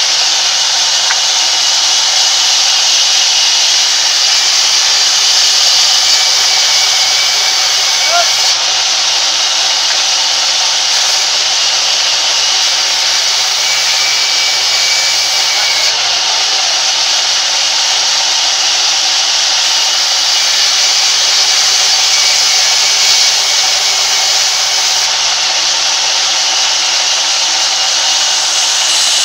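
Sawmill band saw running and ripping lengthwise through a large log: a loud, steady hiss of the blade cutting wood.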